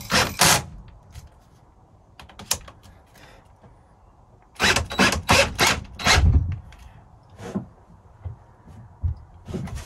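Cordless drill driving a long wood screw through a bench vice's base into a wooden bench, in short stuttering bursts as it labours against the load. The longest run of bursts comes about halfway through.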